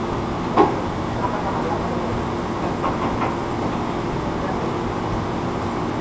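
Steady machinery drone of a working iron foundry hall, with a sharp metallic clank about half a second in and two lighter knocks around three seconds.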